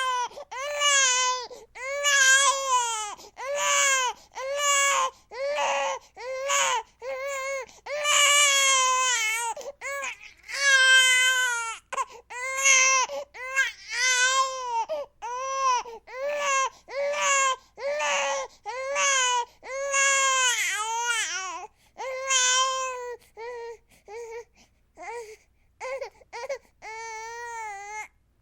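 Baby crying: a continuous run of short cries, roughly one a second, each rising and then falling in pitch. Over the last few seconds the cries become shorter and quieter.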